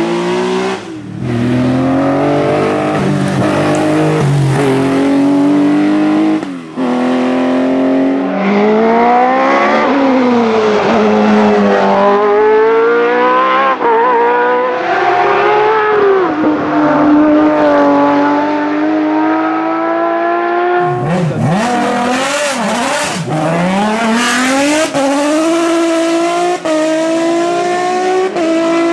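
Racing car engines at full throttle, several cars one after another. Each engine climbs in pitch through the revs and drops sharply at each upshift as it accelerates hard.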